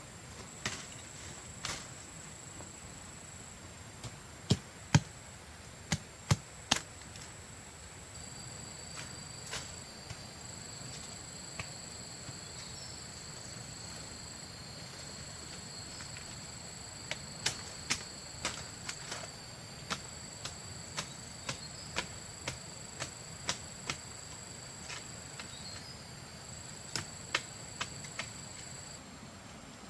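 Sharp chopping strikes, scattered at first, then a run of about two a second partway through, and a few more near the end. A steady high drone of insects runs behind them.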